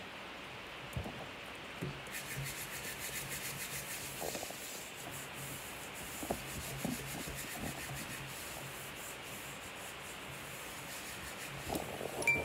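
Hands handling a plastic carousel music box globe: faint rubbing and scraping against it, with scattered soft knocks and a sharper knock near the end as it is tipped over.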